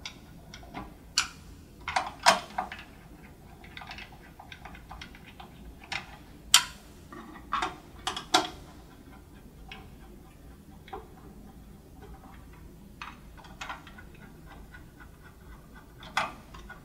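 Screwdriver tightening the module retaining screws of a cable TV amplifier module in its die-cast metal housing: scattered sharp metallic clicks and small knocks, the loudest ones about two and eight seconds in.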